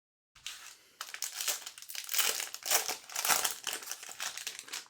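Foil wrapper of an Upper Deck CHL hockey card pack crinkling as it is handled and opened. It starts about half a second in and stops suddenly at the end.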